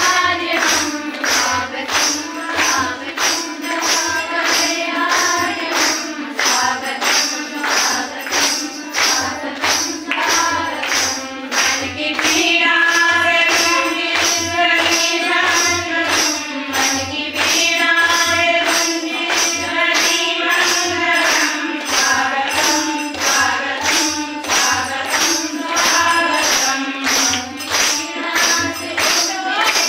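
Music: voices singing a song over a steady percussion beat of about two strokes a second.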